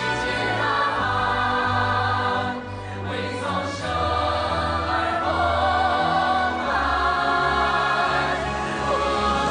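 A song from a stage musical, sung by massed voices in chorus over sustained instrumental accompaniment, with long held notes. The music briefly drops in level about two and a half seconds in.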